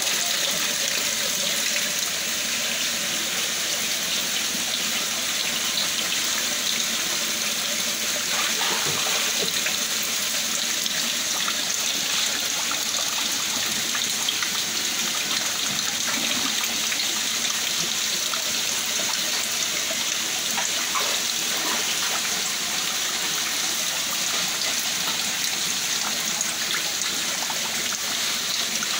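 Water running steadily into a shallow concrete hatchery tank, an even, unbroken rush.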